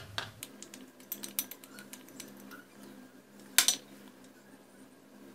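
Light scattered clicks and taps of a spoon and glass against a small stainless-steel saucepan, with a louder clink about three and a half seconds in.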